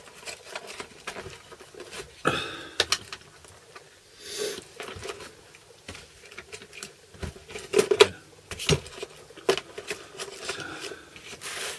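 Handling noise as a hand rivet gun is got out: scattered clicks and knocks of hard objects being picked up and set down, with a couple of short rustles or scrapes.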